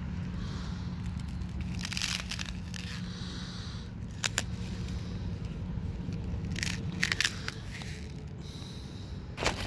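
Plastic water bottle with partly frozen water being handled and turned, the plastic giving a few short crinkles and crackles. A steady low rumble runs underneath.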